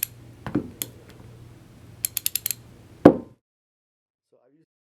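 Popular Mechanics 3/8-inch drive ratchet being worked by hand, its single pawl clicking over the gear teeth in short runs of quick clicks, with a louder knock about three seconds in. The sound then cuts off abruptly.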